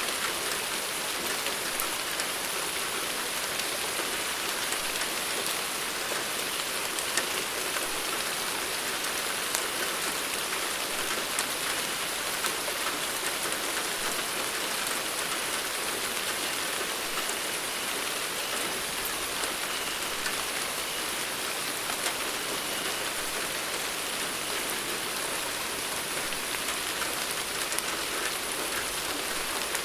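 Steady rain falling without thunder: an even hiss with scattered ticks of individual drops striking a surface.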